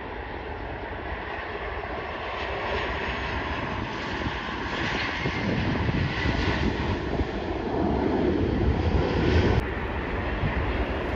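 Jet engines of a Southwest Boeing 737 on its landing roll: a steady rushing jet noise that grows louder toward the end. Near the end it cuts off suddenly and gives way to the quieter sound of another airliner coming in to land.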